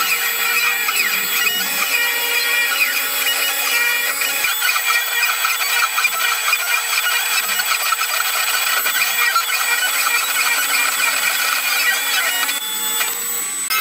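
CNC milling machine with a small end mill cutting an aluminium cylinder head. The cutting noise is steady and high-pitched, with a constant whine over it, and it dips briefly near the end.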